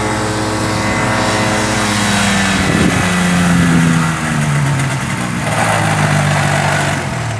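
A light airplane's piston engine running close by, its pitch dropping in steps about three seconds in as the power comes back, over wind noise.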